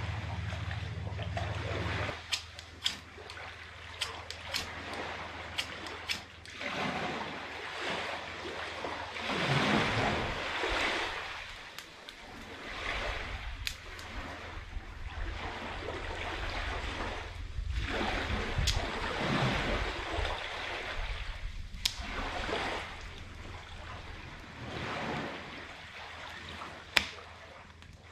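Small sea waves washing up a sandy shore, swelling and fading every few seconds, with scattered sharp snaps and clicks from sticks and a small campfire being tended; the loudest snap comes near the end.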